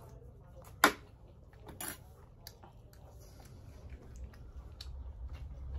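Faint chewing of momos, with a sharp click about a second in and another just before two seconds, and a low rumble that grows toward the end.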